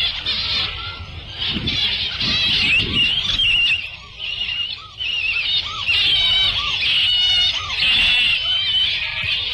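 Jungle-ride sound-effect track: a dense chorus of chirping, trilling bird and animal calls, with a low rumble underneath and a few lower cries about two seconds in.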